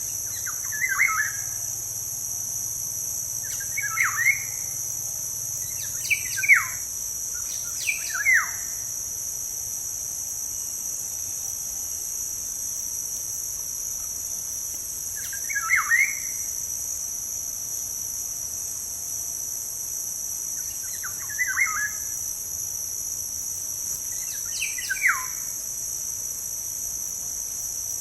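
A bird giving short, falling chirps, seven in all at irregular intervals, over a steady high-pitched drone of insects.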